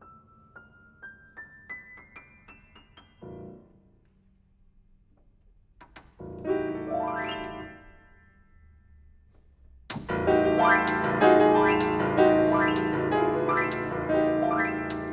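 Steinway & Sons grand piano playing a contemporary solo piece. It opens with quiet single notes climbing step by step, then a soft low chord. After a pause comes a loud attack with a fast rising run that dies away, and from about ten seconds in a loud, dense passage of repeated chords.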